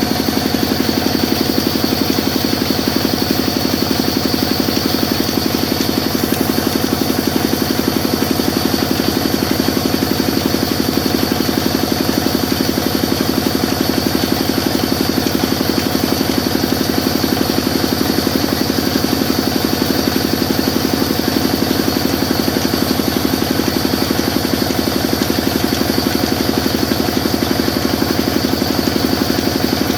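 Sawmill machine running steadily, a constant mechanical hum with fast, even pulsing and a steady high whine.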